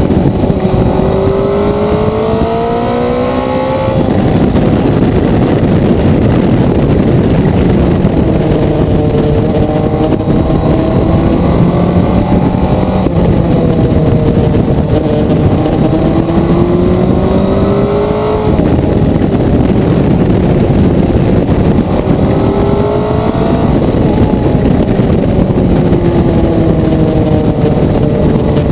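Motorcycle engine under way, with a dense rush of wind and road noise underneath. The engine's pitch climbs under throttle, drops off sharply about four seconds in, then rises and falls again several times as the throttle is opened and closed, with further sharp drops a little past halfway.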